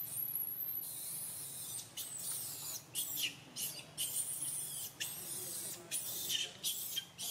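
Baby macaque screaming in distress: a rapid series of very high-pitched squeals, some held and some falling sharply in pitch.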